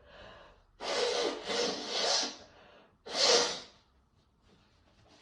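A person's loud, noisy breaths: a long one about a second in, then a shorter one.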